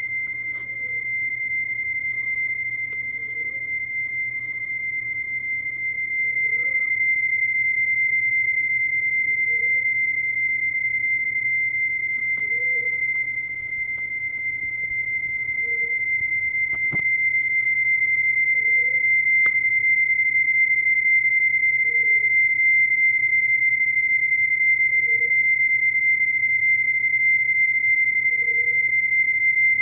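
Steady high-pitched single tone of PSK31 digital-mode transmit audio while the Elecraft KX2 sends a reply, held unbroken throughout, with a faint click about 17 seconds in.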